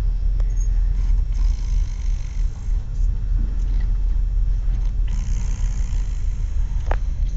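Snoring: slow, drawn-out breaths about four seconds apart over a steady low rumble.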